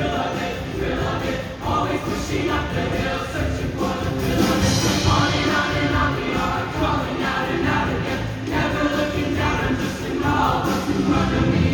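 Show choir singing in full voice over instrumental accompaniment.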